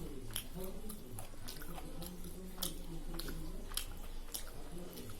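A person chewing food close to the microphone, with a string of wet, sharp mouth clicks and smacks.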